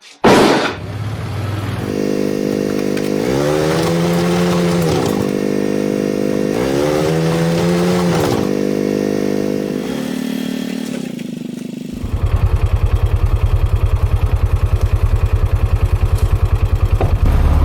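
A small vehicle engine running. It gives a sharp burst at the start and rises and falls in pitch twice as it is revved, between about three and eight seconds in. About twelve seconds in it drops into a lower, evenly pulsing run.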